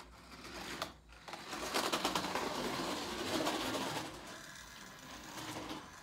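Small electric motor of a toy RC car whirring as it runs, loudest from about a second in until about four seconds in, then fainter.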